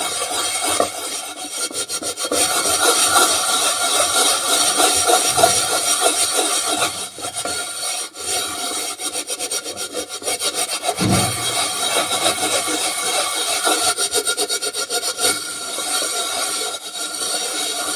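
Steel-wire scrubber rubbed fast back and forth over the bottom of a frying pan, scraping through a gritty white cleaning paste in quick, steady strokes.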